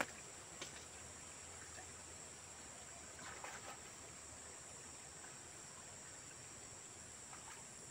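Faint outdoor ambience dominated by a steady high-pitched insect drone, with a short click at the start and a few faint soft sounds about three seconds in.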